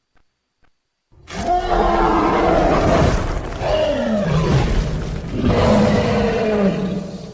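Godzilla roar sound effect: a loud, rough roar starting about a second in, swelling three times with the pitch falling in each, the last one fading out.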